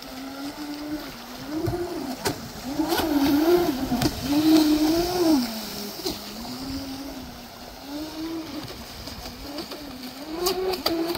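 Delta Force 53 RC speedboat's motor running out on the water. Its whine rises and falls in pitch over and over as the boat changes throttle and turns, loudest a few seconds in.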